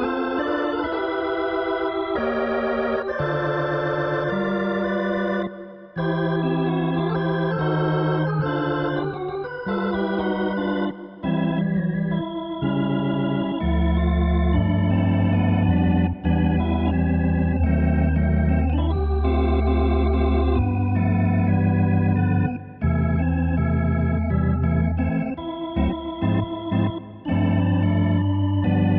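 Yamaha PSR-S670 digital arranger keyboard playing an organ voice: held chords with short breaks between phrases, and a deep bass line coming in about halfway through.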